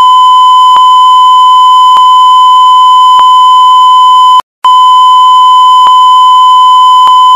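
Loud, steady 1 kHz line-up test tone of the kind that accompanies colour bars. It cuts out briefly about four and a half seconds in, then resumes unchanged.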